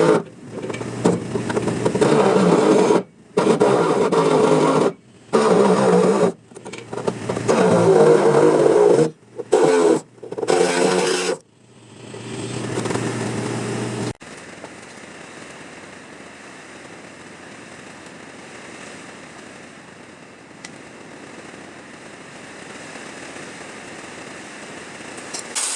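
A power tool run in short, abruptly stopped bursts of one to two seconds, cutting into car body sheet metal, for about twelve seconds. A faint steady hiss follows to the end.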